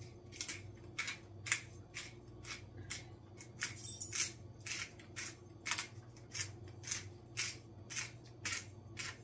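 Seasoning shaken from a spice shaker onto a raw ribeye steak in quick, even strokes, about three a second, over a steady low hum.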